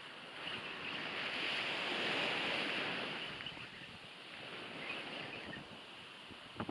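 Sea waves washing in on the shore: a surge that builds about half a second in, peaks around two seconds and falls away, then a smaller wash near the end, with some wind on the microphone.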